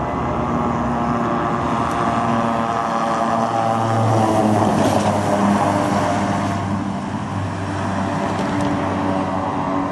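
Military vehicles driving past on a road: engine running with tyre noise, swelling to its loudest about four to five seconds in as one passes close, then easing off.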